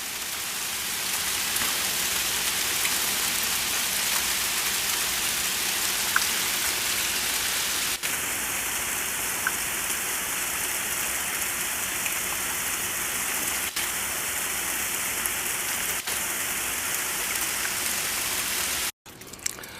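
Sleet and freezing rain falling steadily: a dense, even hiss with a few small ticks. It cuts off suddenly near the end.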